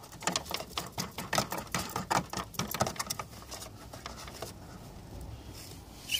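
Rapid, irregular small plastic clicks and rustling from hands handling a car's tail-light wiring harness and connector against the boot's plastic trim. The clicking is busy for the first few seconds, then dies down to a faint rustle.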